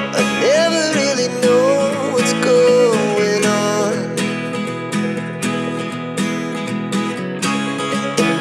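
Background music with guitar and a wavering melody line over a steady rhythm.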